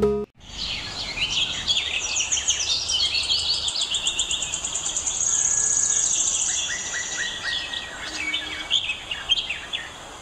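Many small birds chirping and calling over each other in quick, overlapping high notes, with a rapid high trill about five to seven seconds in.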